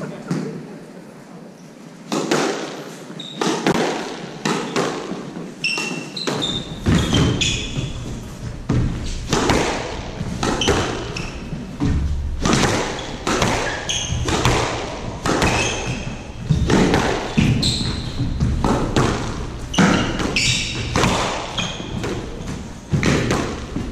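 Squash rally: the ball is struck by rackets and hits the court walls again and again in a quick, uneven series of sharp knocks, with court shoes squeaking on the wooden floor. The rally starts about two seconds in.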